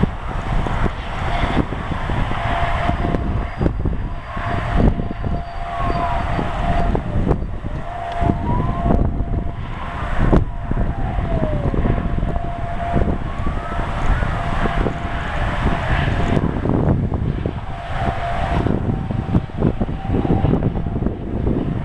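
Strong wind buffeting the microphone in gusts, with a steady whistling tone and tones sliding up and down through the middle.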